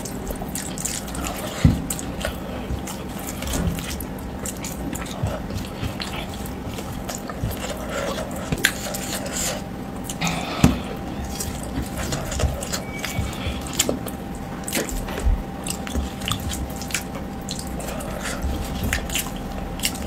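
Wet, sticky squelches and smacks of soft food squeezed in the fingers and eaten by hand, with scattered small clicks, over a faint steady hum.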